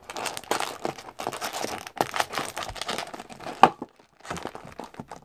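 Paper and cardboard crinkling and rustling as a trading-card hobby box and its paper flyer are handled, with one sharp tap a little past halfway. The rustling eases off after about four seconds.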